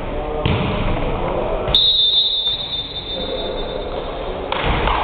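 Thuds of a volleyball being struck and bouncing on a gym floor, three of them spread over a few seconds. The loudest, about two seconds in, is followed by a high steady tone lasting about two seconds.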